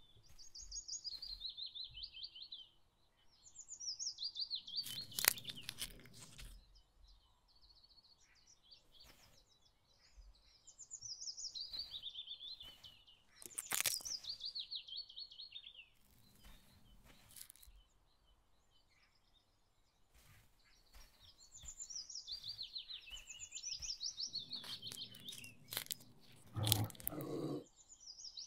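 A songbird singing a fast trilled phrase that slides down in pitch over two or three seconds, repeated several times with pauses. Between phrases come a few sharp crunches and clicks.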